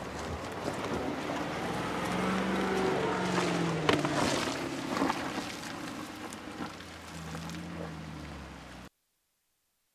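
2022 Land Rover Defender's supercharged 5.0-litre V8 running as the vehicle crawls over rough forest ground, the engine note rising and falling amid heavy off-road rumble. A few sharp cracks come about four and five seconds in, and the sound cuts off suddenly about nine seconds in.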